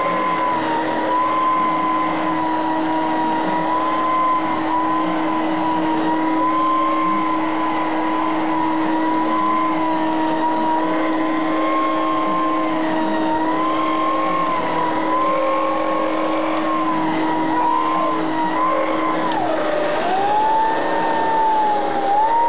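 Electrolux 2100 vacuum cleaner running, its motor giving a steady hum under a whine that wavers in pitch, dipping sharply about 20 seconds in and climbing back.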